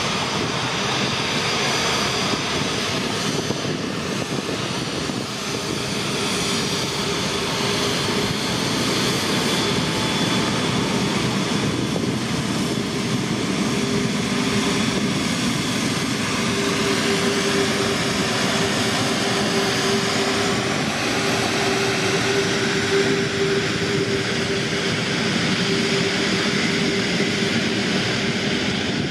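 Airbus A380-800's four jet engines running steadily as it taxis: an even rushing noise with a held low hum that grows stronger about halfway through, and a thin high whine above it.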